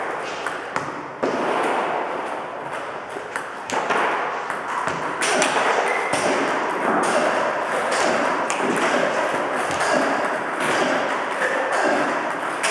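Celluloid-type table tennis balls clicking sharply in quick succession, struck by rubber-faced bats and bouncing on the table, during multiball practice. The player answers the fed balls with backhand chops and forehand topspin strokes.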